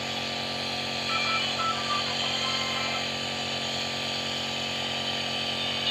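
Home nebulizer's compressor running with a steady, even hum.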